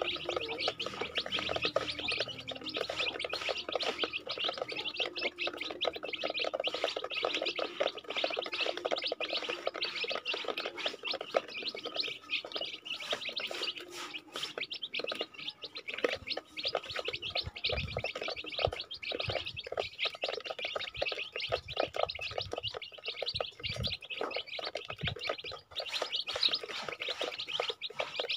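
A group of young chicks peeping continuously as they feed, with many quick taps of beaks pecking at a plastic feeder. A few dull low knocks come in the second half.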